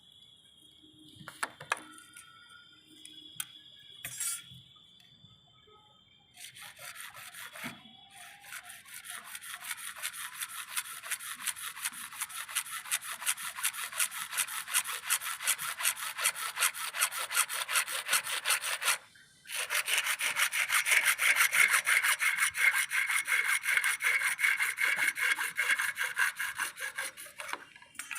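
Hacksaw cutting CPVC pipe with quick, even back-and-forth strokes, stopping briefly partway through and then carrying on. A few light clicks and taps come before the sawing starts.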